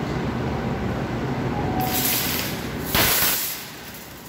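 A metal shopping cart rumbling and rattling as it is pushed across a hard floor. A loud rushing hiss cuts in about three seconds in and fades within half a second.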